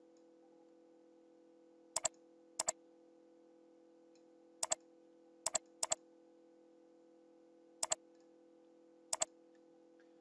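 Computer mouse button clicked seven times at uneven intervals, each click a quick press-and-release double tick, over a faint steady hum.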